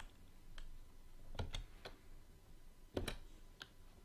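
Computer keyboard keys being pressed one at a time, several scattered clicks at uneven spacing, the loudest about a second and a half and three seconds in.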